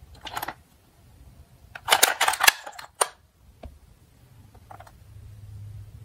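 Plastic toy fire truck being handled and turned over in the hands, clicking and rattling in a few short bursts, the loudest cluster about two seconds in and a single click a second later.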